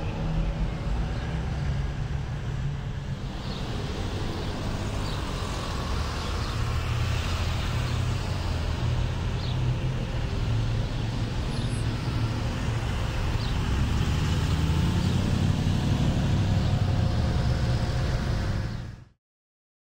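Road traffic on a town street: car engines running and passing as a steady low rumble that grows louder in the last few seconds, then cuts off suddenly.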